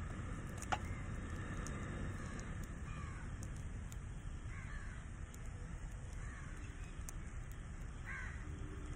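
A bird calling four times at intervals over a steady low rumble, with a single short click near the start.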